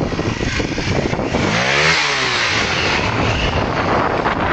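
Honda NX250 Dominator's single-cylinder four-stroke engine running as the motorcycle rides past, loudest about two seconds in.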